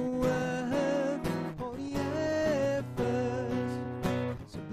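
A man singing his own song to his acoustic guitar, held sung notes over plucked and strummed chords.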